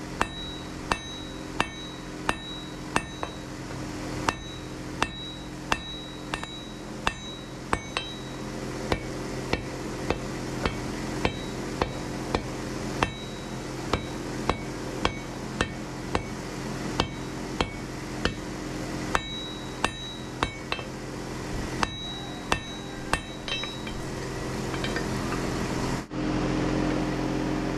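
Hand hammer striking hot steel on an anvil, about two blows a second, each with a short metallic ring, over a steady low drone. The blows stop shortly before the end and the drone grows louder.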